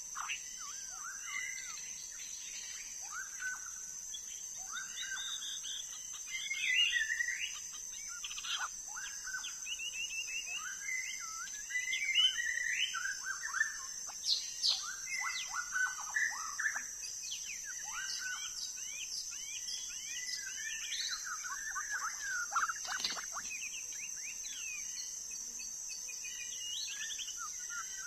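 White-rumped shama singing a long, unbroken run of varied whistled phrases, with many quick notes sliding up and down. A steady high-pitched drone runs behind the song.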